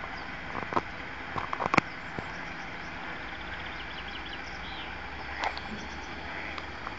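Rotating bridge scraper of a circular sewage clarifier moving past: a steady background noise with a cluster of sharp clicks and knocks in the first two seconds and one more about five and a half seconds in. High bird chirps come in between.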